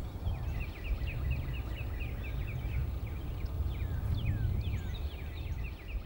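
Small birds chirping: many short, quick, high chirps, several a second, some sliding downward. A steady low rumble runs underneath.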